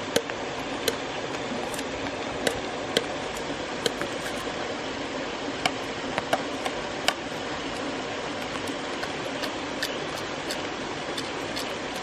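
Machete blade striking and splitting a bamboo tube: a series of sharp, irregular knocks, closer together in the first half and sparser later. A steady hiss runs beneath.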